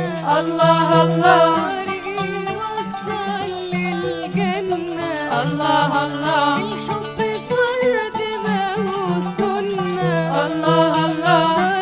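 A girls' choir singing an Arabic Islamic devotional song (nasheed) together into microphones, over a sustained low note and instrumental accompaniment that includes an oud.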